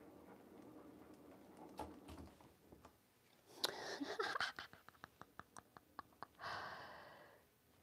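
Paint-pouring spinner turning a canvas with a low rumble, then a sudden loud scrape about three and a half seconds in as gloved hands catch and stop the spinning canvas. A quick run of light clicks, about five a second, follows, and a hiss fades out near the end.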